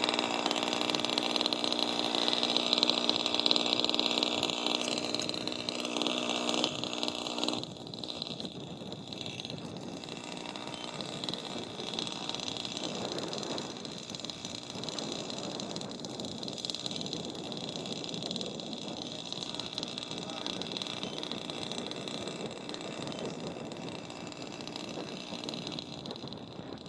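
Radio-controlled twin-engined Mosquito scale model flying overhead, its motors and propellers giving a steady whine. About seven and a half seconds in the whine stops suddenly and the level drops, leaving a quieter, rougher hum.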